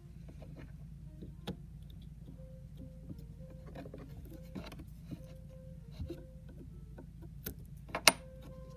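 Scattered small clicks and taps of a coin being handled and pressed into putty on a wooden board, with a sharp click about eight seconds in as the coin meets the wood.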